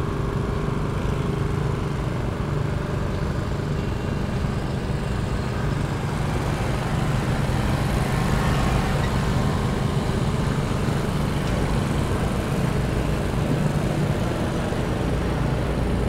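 Petrol engine of a Toro all-wheel-drive walk-behind lawn mower running steadily, a continuous low engine hum.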